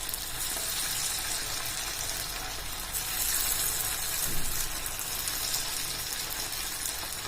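Hot oil sizzling with a steady hiss as poha-and-potato snack pieces deep-fry.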